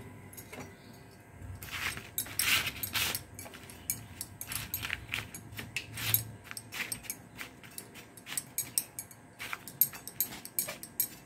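A spoon stirring and spreading half-fried potato sticks on a sheet of newspaper: irregular light clicks, scrapes and paper rustling, a few a second.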